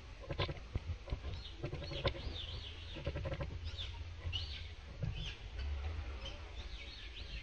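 Birds chirping: short, repeated high warbling notes that rise and fall. A few sharp clicks and rustles come in the first couple of seconds, over a low steady rumble.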